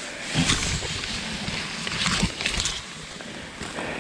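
Tall grass rustling and swishing against the camera and clothing as someone pushes through it on foot, in uneven brushes with no steady tone.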